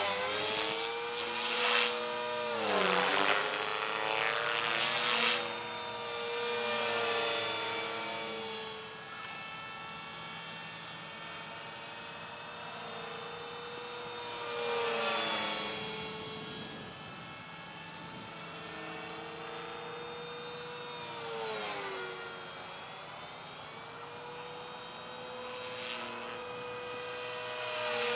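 Align T-Rex 450 Sport radio-controlled helicopter in flight, its electric motor and rotor blades giving a steady whine. The pitch dips briefly and recovers twice, and the sound grows louder and fainter as the helicopter moves about overhead.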